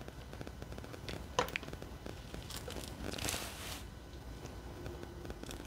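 Quiet handling sounds of a diamond painting canvas and a tape measure on a stone countertop: a light tick about a second and a half in and a brief crinkle of the canvas about three seconds in, over faint scattered clicks.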